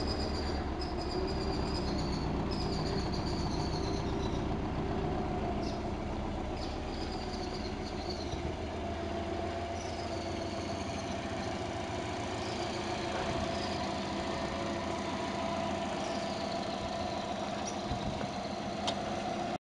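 Subaru Legacy B4 RSK's 2.0-litre twin-turbo flat-four idling steadily, a low even rumble.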